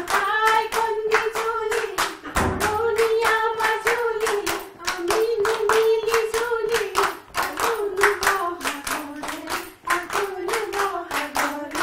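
A group of women singing a song together while clapping along in a quick, even rhythm.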